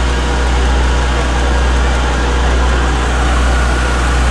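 Steady low rumble and running noise of a passenger train in motion.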